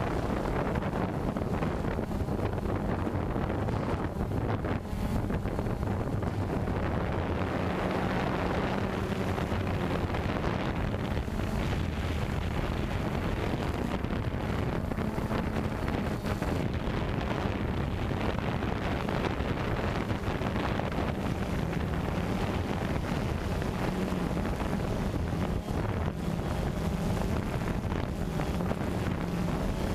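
Multirotor drone's propellers and motors humming steadily, with wind from the rotors buffeting the microphone.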